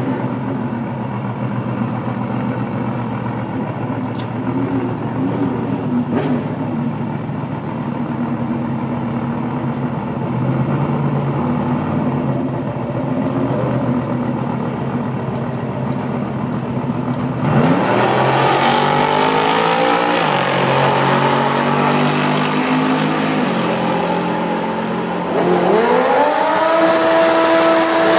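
Green drag car's engine rumbling and blipping at the start line for about 17 s, then launching at full throttle: its pitch climbs, drops at gear changes and climbs again. Near the end it climbs once more to a high, held pitch.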